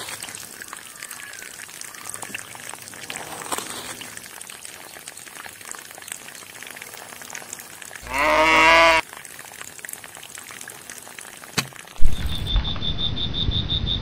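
A young calf bleats once about eight seconds in, a single call of about a second that dips and rises in pitch, over faint trickling water. About twelve seconds in, louder background music starts.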